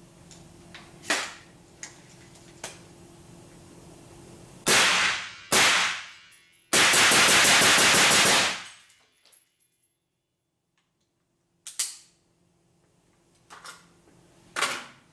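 Red Jacket 7.5-inch piston-driven 5.56 short-barreled rifle firing through a welded suppressor in an indoor range. Single shots come first, then a burst of rapid automatic fire lasting almost two seconds in the middle, then a few more single shots. The shots echo off the walls.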